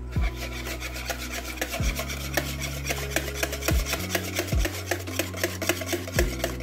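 Wire whisk beating yogurt and milk in a plastic bowl, with rapid, even scraping strokes of the wires against the bowl, several a second. The thick yogurt is being whisked thin with milk.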